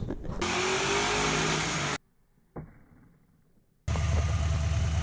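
Car engine running in two short clips joined by hard cuts, with a brief near-quiet gap between them; the pitch rises slightly during the first clip.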